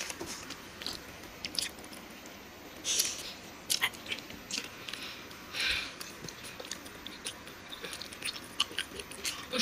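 Close-miked chewing and mouth sounds of someone eating a soft chocolate-coated marshmallow cake: scattered wet clicks and smacks.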